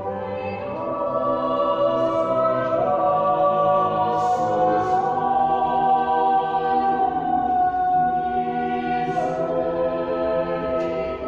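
Small mixed choir of men's and women's voices singing long held chords that move from note to note, swelling in loudness over the first couple of seconds, with a few sung 's' sounds standing out.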